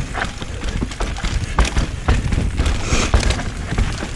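Mountain bike descending a rough, rooty trail: tyres on dirt and the bike rattling, with sharp knocks over roots. Heavy wind rumble on the microphone.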